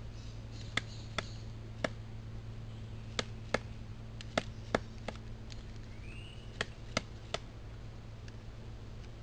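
Pileated woodpecker chiselling at a tree: about ten sharp, irregular knocks of its bill on wood, several coming in quick pairs.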